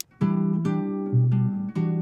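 Background music: plucked acoustic guitar playing a chord pattern, starting just after a short click.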